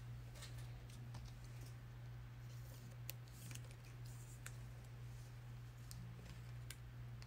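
Faint scattered clicks and light scratchy ticks of basketball trading cards being handled and slid out of a freshly opened Donruss Optic pack, over a steady low hum.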